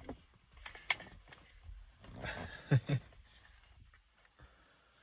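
Handling noises: rustling, a sharp click about a second in, and two dull knocks near the middle, then quiet.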